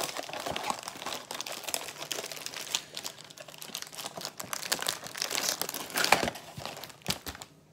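Cookie packaging being opened: the box and its inner wrapper crinkling and tearing in quick, crackly rustles with sharp snaps, stopping abruptly near the end.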